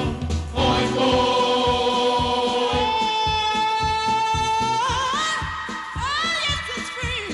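A song with a beat: a singer holds one long high note, then slides upward twice in short vocal runs over a steady drumbeat.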